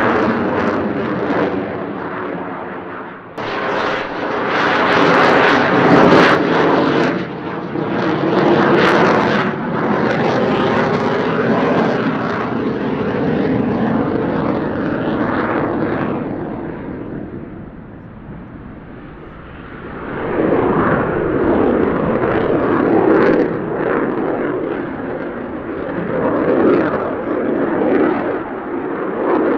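Jet engine noise from a Saab JAS-39 Gripen's Volvo RM12 afterburning turbofan as the fighter manoeuvres overhead. The noise is loud and rises and falls, with a sudden jump in loudness a few seconds in and a dip about two-thirds of the way through before it swells again.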